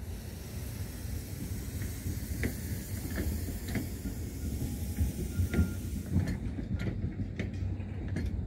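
A tram rolling in on the loop's tracks: a steady low rumble with a high hiss that fades about six seconds in, then a run of clicks and knocks from the wheels passing over the rails.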